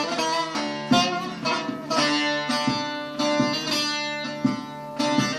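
Instrumental break in a Turkish folk song: a plucked string instrument plays a melody of separate plucked notes, each starting sharply and fading, over a steady low sustained note.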